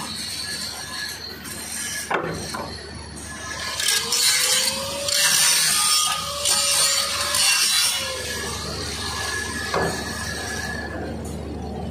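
Handheld angle grinder grinding on stainless steel pipe: a harsh abrasive scrape lasting about four seconds in the middle, with the motor's pitch rising and then falling, and a short knock before and after it.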